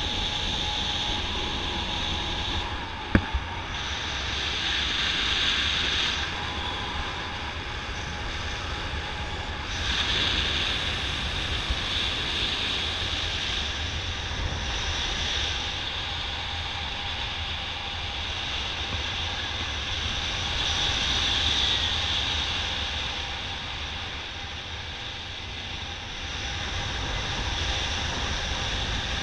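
Wind rushing over the camera microphone from the airflow of a paraglider in flight: a steady rush that swells and eases every few seconds. A sharp click comes about three seconds in.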